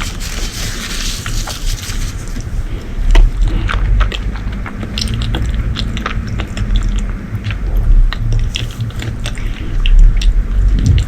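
Close-miked chewing and biting of food, with many sharp clicks and repeated deep thumps.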